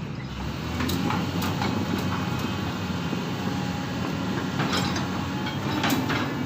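Excavator's diesel engine running steadily, with scattered short metallic knocks and clanks from the machine at work.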